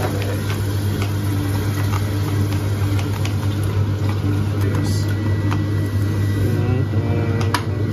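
A kitchen appliance motor hums steadily, with a few light clicks and knocks of kitchen utensils scattered through it.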